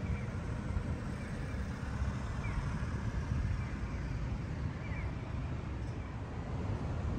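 Steady low outdoor rumble of distant traffic, with a few faint, short, high chirps here and there.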